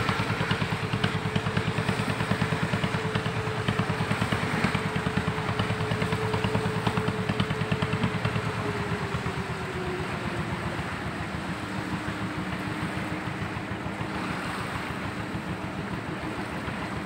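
A small boat's engine running with a rapid, even beat, throttled back about halfway through so its pitch drops and it gets quieter, with water splashing alongside.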